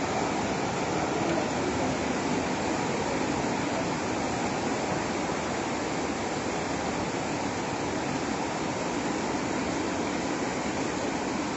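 Steady rushing of a river in flood, an even roar of water with no breaks.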